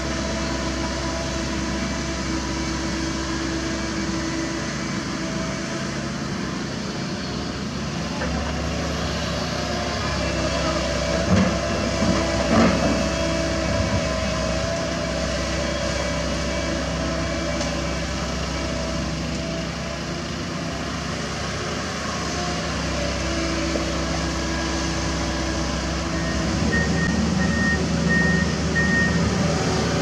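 Komatsu PC195LC crawler excavator's diesel engine running steadily while it digs, its note shifting as the hydraulics take load. Around the middle, two sharp knocks, typical of the bucket striking stones.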